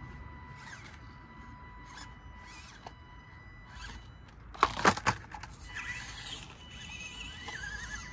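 Small electric RC crawler (Element Enduro24) working over rocks. Three sharp clacks come just past the middle as the truck bumps over the rocks, and near the end a thin motor whine wavers up and down with the throttle.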